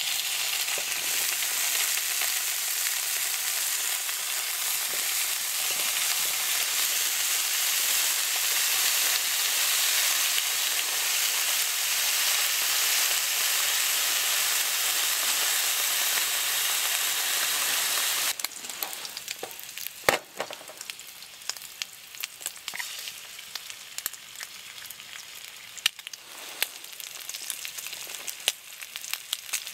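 Smoked bacon sizzling in a frying pan over a wood stove, a loud steady hiss. About 18 seconds in it drops suddenly to quieter frying with scattered pops and crackles, and there is a sharp tap soon after.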